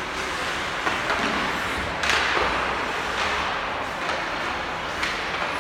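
Ice hockey play sounds: skates scraping the ice under a steady rink hiss, with a few sharp knocks from sticks and puck, the loudest about two seconds in.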